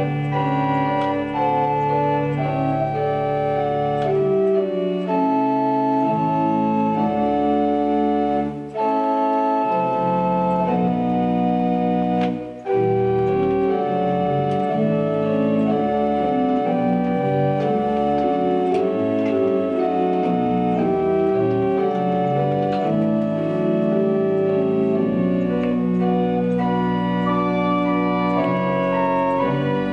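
Church organ playing sustained chords, the held notes changing in slow steps, with two short breaks between phrases about 9 and 12.5 seconds in.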